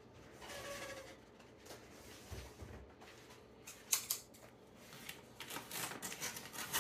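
Scissors snipping open a plastic pouch of almond flour, with the bag crinkling: a sharp click about 4 seconds in, then a quick run of crisp snips and rustles near the end.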